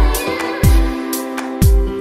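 Background music with a deep, booming kick drum beat under held melodic notes.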